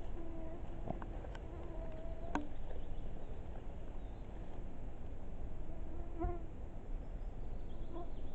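A flying insect buzzing close by in a steady, wavering hum for the first couple of seconds, then passing by again briefly twice near the end. A few sharp clicks sound early on over a constant low rumble.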